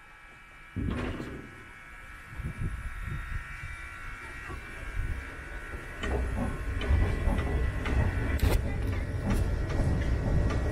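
Narrow-gauge steam train's carriages moving off with a sudden jolt just under a second in, then wheels rumbling and clanking on the rails, getting louder from about six seconds in as the train picks up speed.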